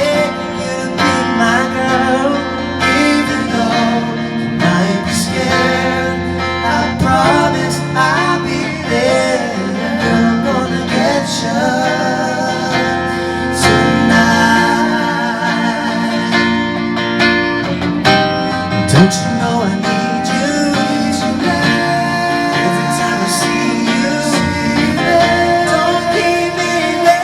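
A live band playing a pop-rock song: guitar with singing over it and occasional sharp percussive hits.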